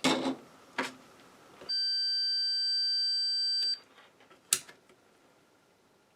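Multimeter continuity beeper sounding one steady high beep for about two seconds as the probes bridge two connector pins, signalling a dead short (here on the power supply's main board). Short clicks of the probes come before it, and one sharp click follows.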